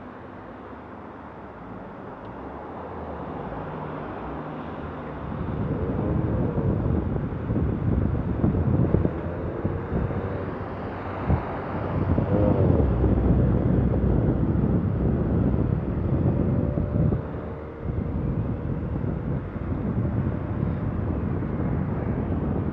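Wind rushing and buffeting over a bicycle-mounted action camera's microphone while riding, growing louder about five seconds in as the bike picks up speed.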